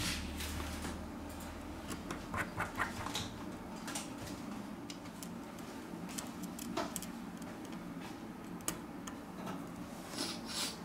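Scattered small clicks and taps of metal tweezers against a smartphone's internal parts as a metal connector bracket beside the battery is worked loose, with a cluster of clicks a couple of seconds in and more near the end, over a steady low hum.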